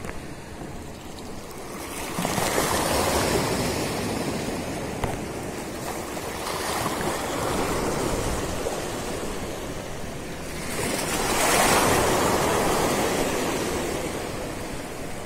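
Sea waves breaking and washing against breakwater rocks. The surf swells twice, about two seconds in and again about eleven seconds in, each time falling back to a steady wash.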